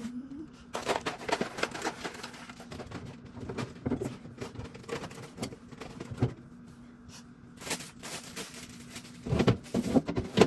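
Irregular knocks, taps and clatter of household objects being handled, with a louder cluster of knocks near the end, over a faint steady hum.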